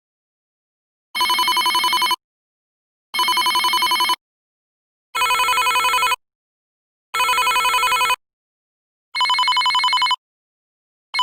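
Electronic telephone ringing: five trilling rings of about a second each, one every two seconds, with silence between them and a sixth ring starting at the end.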